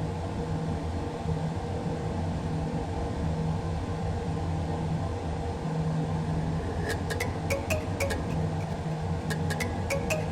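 Vintage ceiling fan running with a steady motor hum and air noise. From about seven seconds in come a series of short, sharp clicks with brief bright pings.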